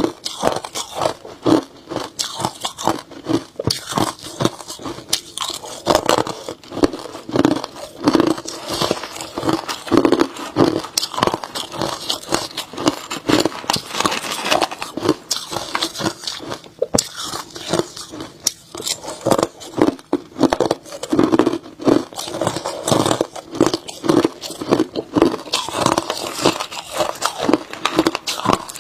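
Hard ice chunks bitten and chewed close to a clip-on microphone: a rapid, unbroken run of sharp crunches and crackles, several a second.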